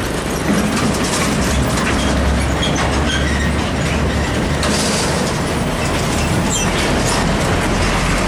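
Mitsubishi Fuso truck passing close by, towing a long empty steel trailer: a steady low diesel rumble with loud, continuous rattling and clanking from the empty trailer frame as it rolls over the road.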